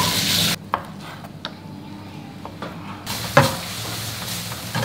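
Food frying in a pan while a spatula stirs it, with sizzling and scrapes and knocks of the utensil against the pan. The sizzle is loud at the start, drops away after about half a second to a few scattered clicks, and comes back in the last second and a half with a sharp knock.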